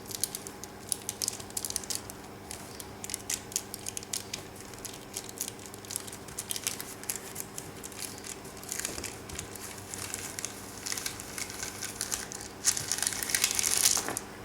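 Baking paper crinkling and crackling as a dried casting of model water effects and realistic water is peeled off it: a rapid, uneven run of small sharp crackles that grows denser near the end.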